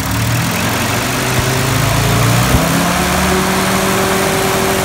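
1946 Willys CJ2A's 134 cubic-inch L-head (flathead) four-cylinder engine running, its revs rising about halfway through and holding higher.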